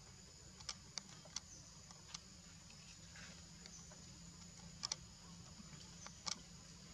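A baby macaque chewing and biting a leaf: scattered sharp clicks, with a close pair about five seconds in, over a steady high-pitched insect hum.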